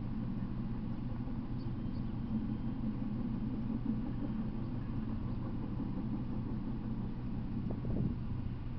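A truck engine running steadily with a low hum. A brief knock or clank comes near the end.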